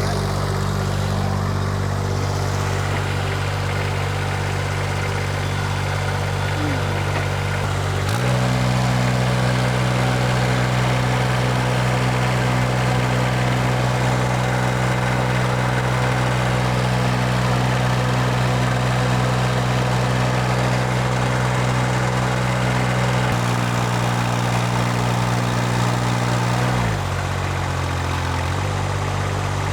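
The lift machine's engine running steadily. Its speed steps up about eight seconds in, then drops back in two steps near the end.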